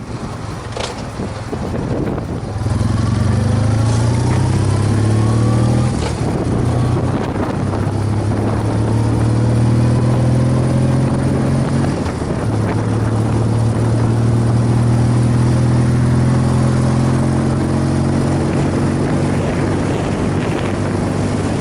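Vintage BMW R50/2 or R60/2 flat-twin motorcycle engine under way. It speeds up over the first few seconds, then runs at a steady pace with two short dips, near six and twelve seconds in, over a steady rush of wind and road noise.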